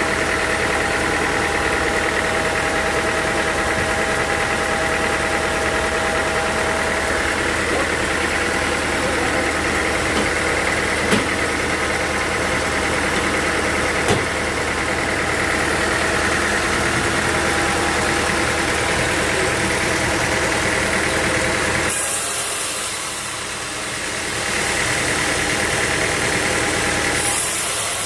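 Sawmill machinery running steadily with an engine-like hum, with two sharp knocks about eleven seconds in and three seconds later. About twenty-two seconds in, the low hum drops away and a high hiss takes over.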